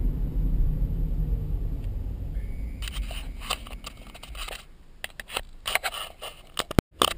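Low road and engine rumble inside a Honda CR-Z's cabin, fading as the car slows almost to a stop behind a truck. From about three seconds in come irregular sharp clicks and scrapes, with a short cut to silence just before the end.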